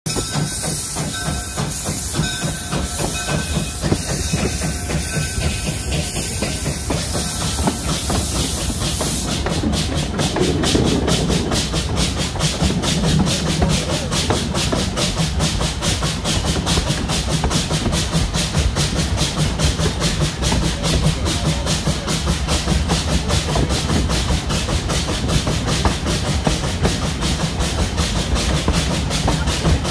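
WW&F No. 9, a two-foot-gauge Forney steam tank locomotive, working along the line. Steam hisses at first, then from about nine seconds in there is a fast, steady beat of exhaust chuffs from its stack.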